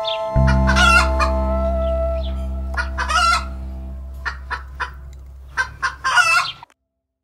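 A chicken calling in short, harsh clucks and squawks, a few single ones and then a longer burst near the end, over a low sustained musical note that slowly fades; everything cuts off suddenly near the end.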